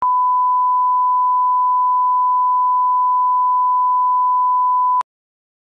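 Bars-and-tone reference test tone: one steady electronic beep at a single pitch, held for about five seconds and then cut off abruptly.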